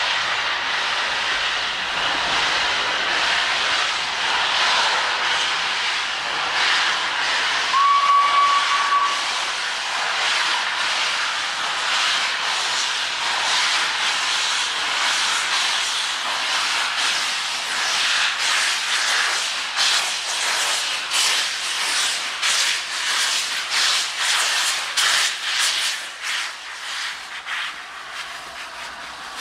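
Steam locomotive 60103 Flying Scotsman hissing loudly with steam from its open cylinder drain cocks as it gets under way. There is one short whistle blast about eight seconds in, and in the second half a rhythm of exhaust chuffs comes through the hiss.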